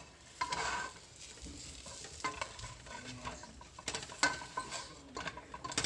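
Ground turkey burger sizzling in a frying pan, with a utensil scraping and clicking against the pan several times.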